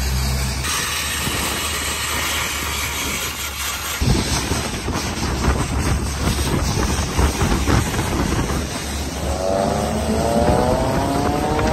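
Traffic and road noise heard from inside a moving car, with wind hiss that turns rough and gusty on the microphone about four seconds in. Near the end an engine note rises steadily in pitch as a vehicle accelerates.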